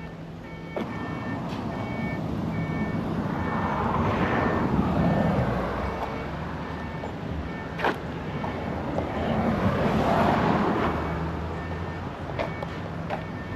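Two road vehicles passing by on a highway, one after the other, each swelling up and fading away; the first passes about four to five seconds in, the second about ten seconds in.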